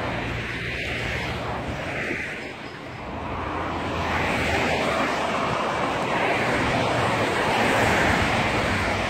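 Road traffic noise: a steady rush of passing vehicles that dips briefly and then swells louder about three seconds in.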